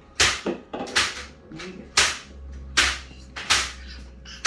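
A series of about six sharp, loud cracks, less than a second apart, each dying away quickly.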